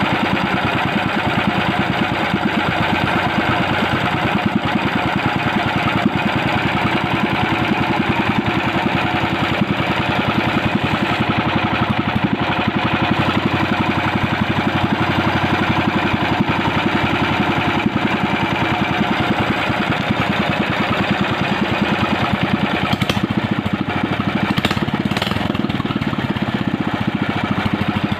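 An engine running steadily at a constant speed with an even, rapid firing beat, with a couple of faint clicks near the end.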